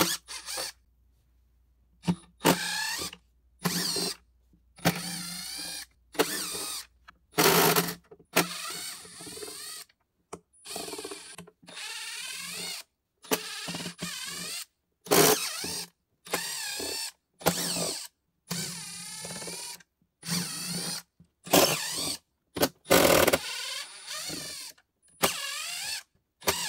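Milwaukee FUEL cordless driver backing screws out of a plastic speaker cabinet, in many short runs of under a second to about a second each. The motor's pitch wavers within each run, with short pauses between them.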